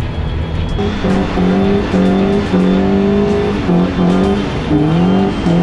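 Fiat 1500's swapped-in Cronos 1.3 four-cylinder engine revving hard, its pitch climbing and dropping back several times, with music underneath.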